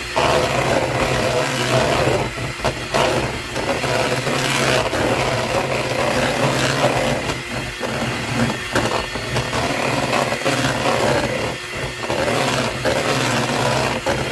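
Electric hand mixer running steadily, its beaters working an egg yolk into a creamed butter and cream cheese mixture.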